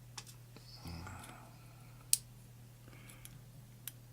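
A few faint, sharp clicks of small metal lock pins and springs being handled and set down, the loudest about two seconds in, over a steady low hum.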